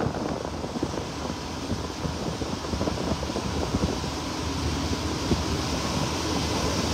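Wind buffeting the microphone of a moving boat, a steady rush with constant flutter, over the wash of water along the hull.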